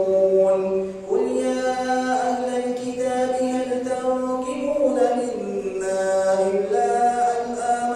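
A man reciting the Quran aloud in a melodic, chanted style, holding long notes and stepping between pitches, with a brief breath just before a second in.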